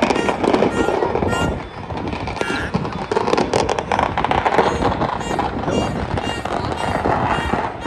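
New Year fireworks and firecrackers going off across a city, a dense run of crackling pops and bangs, with music playing underneath.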